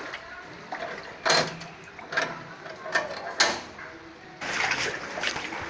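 Metal rattling and knocking of a wrought-iron gate, with four sharp clanks spread about a second apart. A denser, steadier noise comes in near the end.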